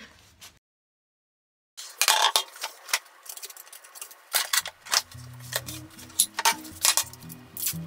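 Kitchen handling sounds: a run of sharp clicks and knocks as items and plastic-wrapped packaging are set down on a counter. Background music with steady notes comes in about five seconds in.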